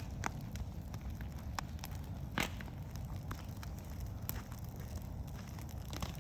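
Wood bonfire crackling: sharp pops at irregular intervals over a low steady rumble, with one louder pop about two and a half seconds in.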